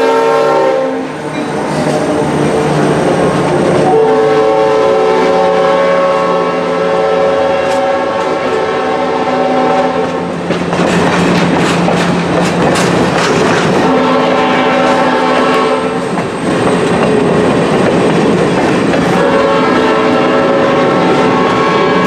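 Whistle of steam locomotive 1309, a C&O 2-6-6-2 Mallet, blowing the grade-crossing signal: long, long, short, long, each blast several tones sounding together. Between the blasts the passing train rushes and rattles.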